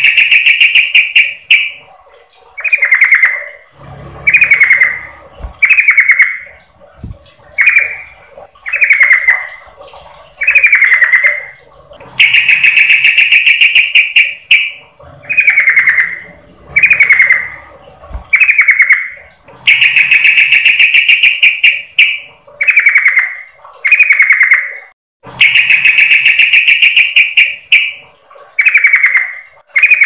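Female yellow-vented bulbul (trucukan) calling to draw a male: long rattling calls of about two seconds alternate with runs of short falling chirps, about one every second or so.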